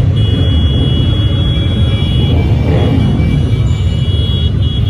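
Dense, steady low rumble of many motorcycle engines running together, with a thin high steady tone coming and going above it.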